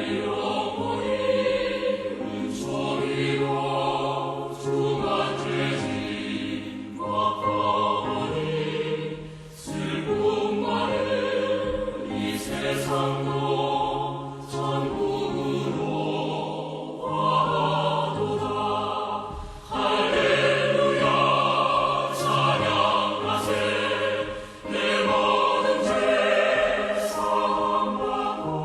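Choral music: a choir singing in phrases a few seconds long over held low notes.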